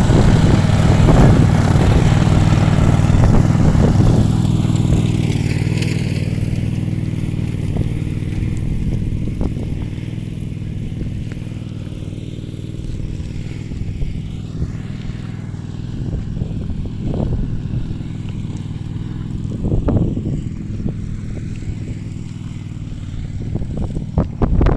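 Small petrol engine of a brush cutter running steadily, louder for the first few seconds and then settling lower, with a few short knocks near the end.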